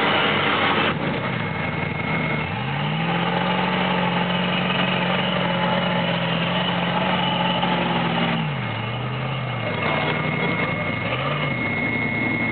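Rock buggy's engine working a rock climb: it rises in pitch about two and a half seconds in, is held at steady high revs for about five seconds, then drops back, with a short rev again near the end. A loud rushing noise cuts off about a second in.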